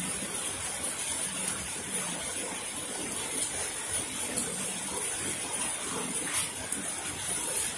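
A steady rushing noise of running or falling water, even throughout with no single sound standing out.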